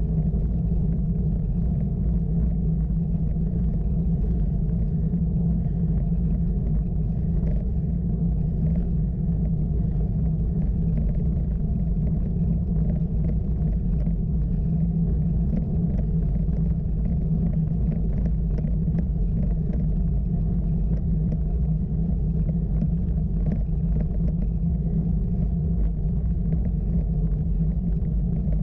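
Steady low rumble of road and wind noise from a road bike being ridden uphill, picked up on the camera's exposed microphone, with faint scattered ticks from the road surface.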